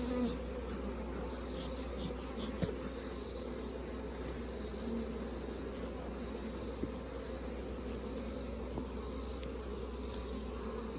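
Honey bees buzzing steadily in a dense swarm around an open hive, with many of them airborne.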